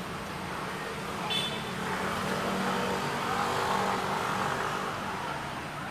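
A motor vehicle passing: a broad rushing noise that builds to a peak around the middle and then fades, with a short high chirp about a second and a half in.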